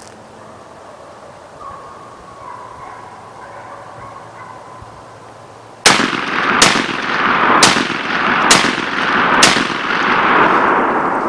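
Five gunshots about a second apart, starting about six seconds in, loud and sharp. Each shot echoes and rolls on across the woods, and the last echo fades slowly.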